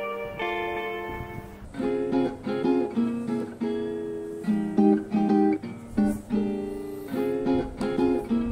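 Background music on acoustic guitar: held chords at first, then plucked notes in a steady rhythm from about two seconds in.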